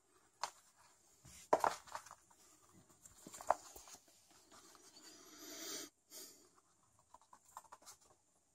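Kittens play-fighting on a wooden floor: faint scattered scratches, scuffs and taps of paws, with a breathy rushing noise that builds for about a second and cuts off suddenly just past halfway.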